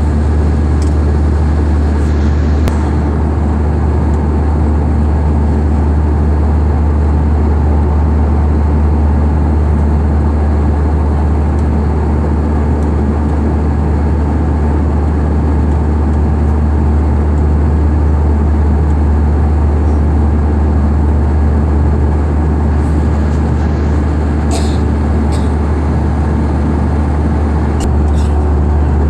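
Steady, loud, low drone of a vehicle in motion, unchanging throughout, with a few faint clicks near the end.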